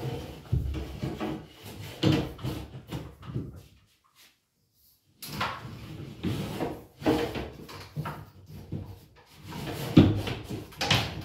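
Flat electrician's fish tape being pulled back through a plasterboard ceiling void, drawing an electrical cable behind it: irregular scraping, rubbing and knocking of tape and cable against the ceiling holes, broken by about a second of silence near the middle.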